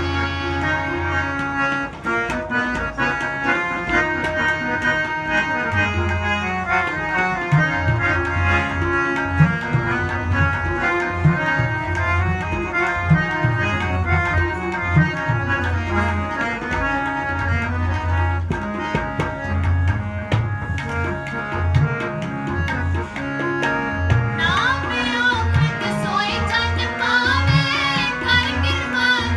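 Shabad kirtan accompaniment: harmoniums play a sustained melody over a steady tabla rhythm, the low drum strokes bending in pitch. A woman's singing voice comes in strongly near the end.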